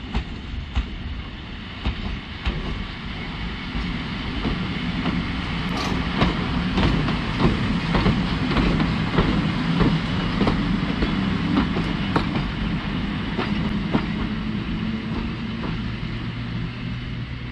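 EP07 electric locomotive moving slowly through the station on a shunting run, its wheels clicking over rail joints and points above a steady low hum. It grows louder toward the middle as it passes, then eases off.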